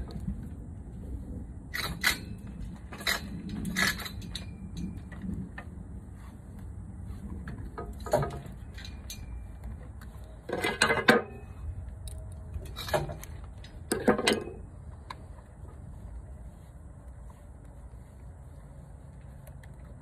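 Electrical tape being pulled off the roll and wrapped around spliced wires: a few short crackling pulls, with two longer, louder pulls about halfway through. A low steady rumble runs underneath.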